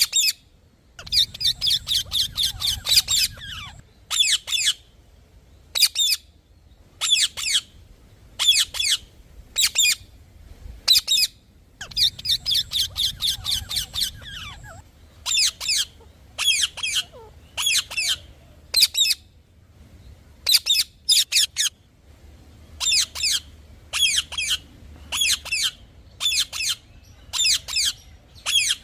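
A parrot giving shrill, chirping squawks in fast runs of about five a second, with single and paired calls between the runs.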